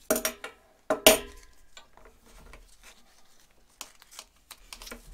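A strip of Velcro being pulled and cut with scissors: two short, loud, noisy rips about a second apart, then faint clicks and rustling as it is handled.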